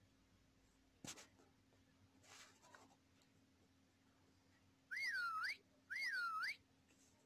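Two short, high-pitched animal calls about a second apart, each dipping and then rising sharply in pitch, after a brief scratchy noise about a second in.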